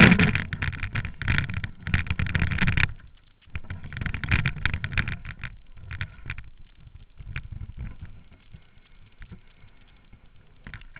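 Close rumbling and crackling noise on a kayak-mounted camera's microphone as the kayak moves off on the river: loudest in the first three seconds and again about four seconds in, then dying down to a faint hiss.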